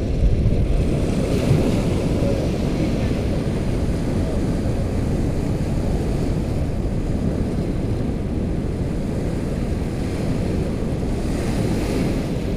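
Small waves breaking and washing up the beach, under steady wind noise on the microphone. A wave washes in about a second in and another near the end.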